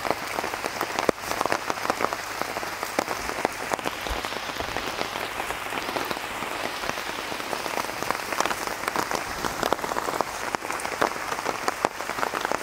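Rain pattering steadily on a tarp overhead: a constant hiss thick with sharp drop ticks.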